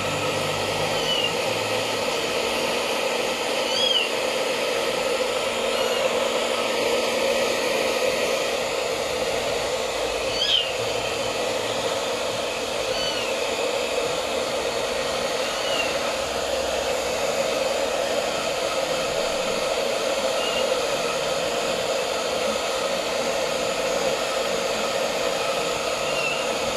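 Handheld hair dryer blowing steadily while drying a wet long-haired cat's coat. Short high chirps sound now and then over it.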